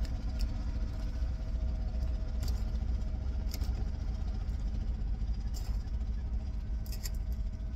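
Steady low mechanical hum, like an engine running, with a few short clicks and scrapes of a knife and fork against a plate.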